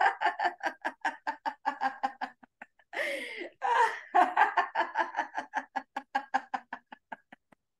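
Laughter-yoga laughter from a voice: a rhythmic run of short 'ha-ha-ha' pulses, about five a second, broken about three seconds in by a sharp in-breath, then picking up again and trailing off near the end.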